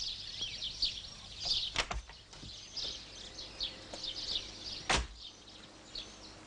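Birds chirping, with two sharp knocks about three seconds apart: a car door being opened and then slammed shut, the slam the louder.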